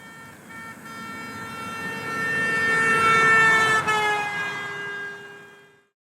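A vehicle horn held in one long honk as it passes: it grows louder, its pitch drops about four seconds in as it goes by, and it fades away.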